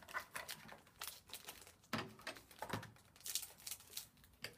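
Baseball card pack wrappers crinkling and trading cards being handled and shuffled, in short irregular rustles.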